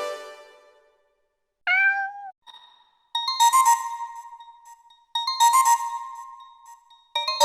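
Nokia 105 mobile phone ringtones: one ringtone's last notes fade out. After a short gap comes a brief meow-like gliding electronic sound, then a new bell-like ringtone melody starts, its phrase repeating about every two seconds.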